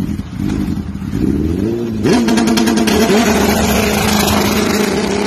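Sportbike engine revved in short blips, then, about two seconds in, revved up and held at high revs on a steady note.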